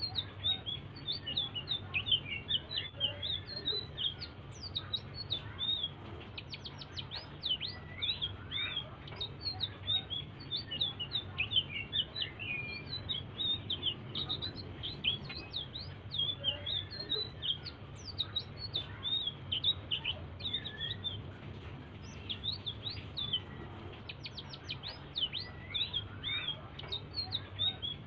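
A selendang biru songbird singing a continuous soft song of short high chirps and quick rising and falling trills, over a low steady hum.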